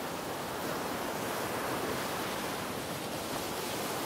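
Steady, even wash of ocean surf.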